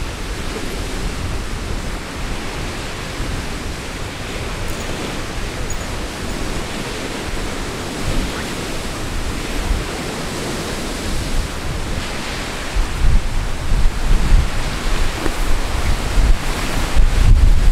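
Strong wind rushing steadily and buffeting the microphone, with heavier gusts in the last few seconds.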